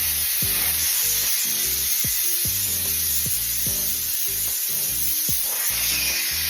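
Loud, steady hiss of pressurized nitrogen rushing out through a refrigerant charging hose from a tank regulator, over background music with a low bass beat.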